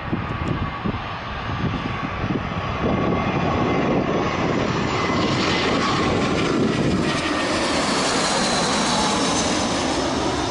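Jet airliner passing low overhead on final approach, its engine noise swelling about three seconds in and staying loud, with a high whine that falls slightly in pitch as it goes by.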